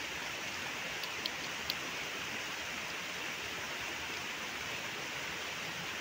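Steady rushing hiss of outdoor background noise, with a few faint ticks between one and two seconds in.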